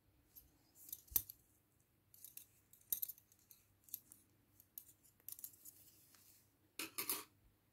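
Light, irregular clicks of a set of five metal double-pointed knitting needles tapping against each other.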